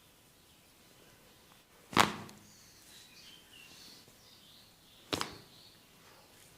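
Two sharp percussive cracks during a head and neck massage, about three seconds apart. The first is the louder and rings briefly; the second is a quick double crack.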